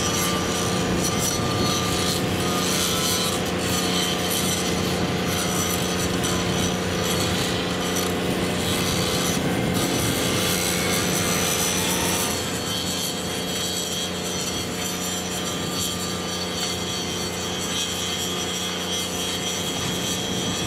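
Steady worksite noise: a rough rasping, scraping sound over a constant machine hum, easing a little about twelve seconds in.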